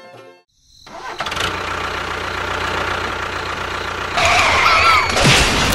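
Small motor starting up and running steadily, with a louder stretch about four seconds in that carries a high wavering whine.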